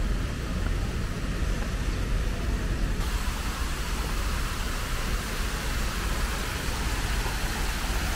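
Low traffic rumble, then from about three seconds in the steady rushing hiss of water cascading down a large tiered fountain.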